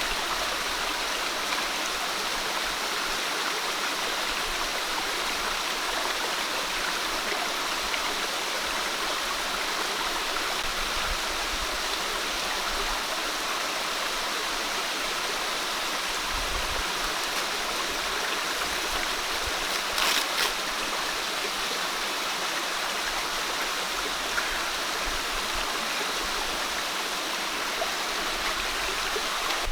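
Steady rushing of flowing water, like a forest stream, with a brief sharp click about two-thirds of the way through.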